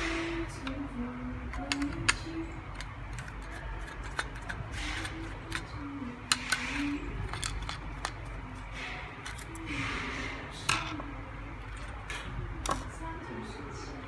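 Scattered sharp clicks and taps as a wireless doorbell receiver's plastic housing and circuit board are handled and a screwdriver works the board's screws, over a low steady hum.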